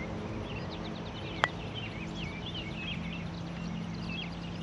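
Birds chirping and singing in short, quick gliding notes over a steady low hum, with one sharp click about a second and a half in.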